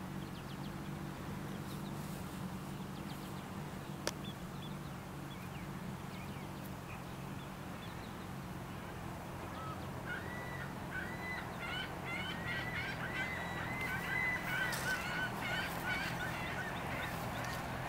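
A run of many short, repeated bird calls from about ten seconds in until near the end, over a steady low hum.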